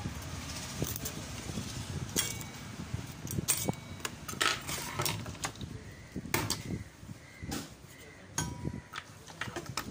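Irregular clicks, taps and light knocks of an air conditioner outdoor-unit circuit board and its wires being handled and moved on a workbench.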